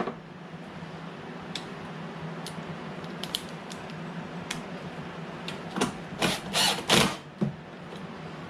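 Ratchet wrench tightening bolts on a Honda lawnmower: scattered light clicks, then a run of four short, louder ratcheting strokes about two-thirds of the way through, over a steady low hum.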